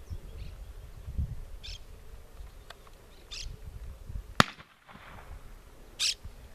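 A single shotgun shot about four seconds in, sharp and much the loudest sound, fired at doves flying overhead.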